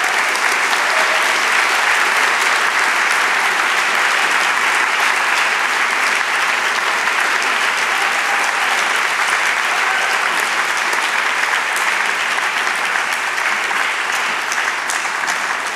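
Audience applauding, a steady clapping that eases off slightly near the end.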